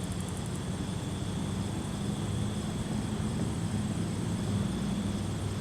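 Steady low background hum, with a faint steady high-pitched tone above it.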